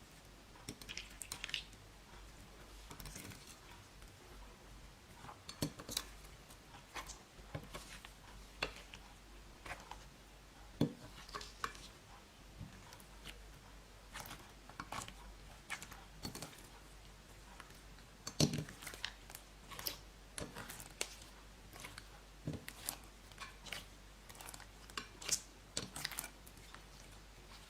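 Slime being squished and kneaded by hand, giving irregular sticky clicks, crackles and pops.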